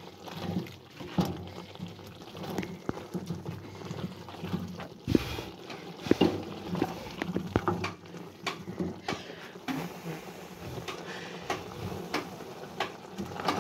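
A large aluminium pot of stew bubbling as it is stirred with a wooden spoon, with irregular clicks and knocks of the spoon against the pot.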